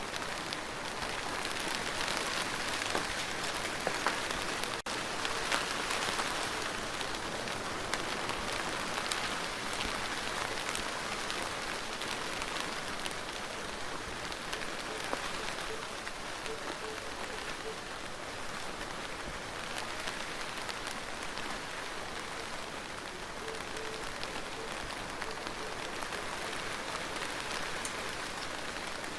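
Steady rain falling on a hard surface, with the patter of individual drops ticking through a continuous hiss. There is no thunder.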